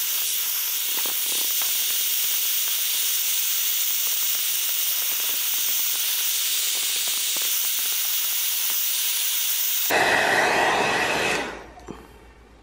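Heat gun blowing hot air with a steady hissing rush and a faint whine, softening clear grip tape. About ten seconds in it turns louder and fuller, then it cuts off and dies away within about a second.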